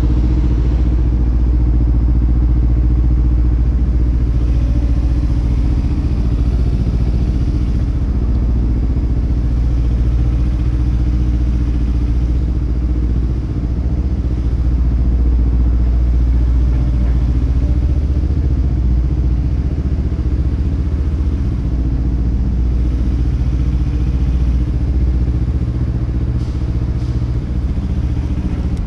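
Kawasaki Ninja 300's parallel-twin engine running steadily at low revs as the motorcycle rolls slowly along.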